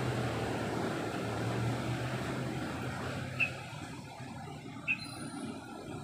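Low rumble of a passing vehicle that fades over the first few seconds, broken by two short, sharp bird chirps about a second and a half apart, with faint high bird whistles near the end.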